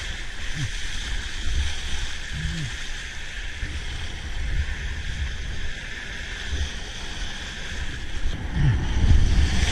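Wind buffeting the action camera's microphone in gusts over a steady hiss of choppy water and spray around a sea kayak paddling through small surf; the rumble swells louder near the end.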